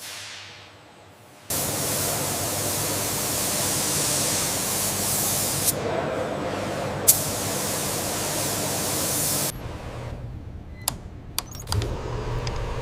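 A loud, steady hiss of rushing air or spray starts abruptly and cuts off after about eight seconds, with two sharp clicks during it. It is followed by a few lighter clicks and a low rumble near the end.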